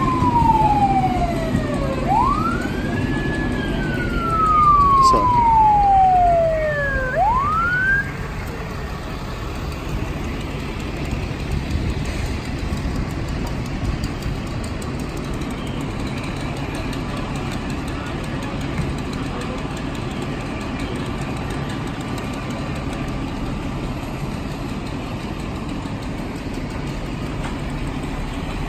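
Emergency vehicle siren wailing in slow sweeps, each a long falling glide followed by a quick rise, cutting off about eight seconds in. After that a steady low engine rumble remains.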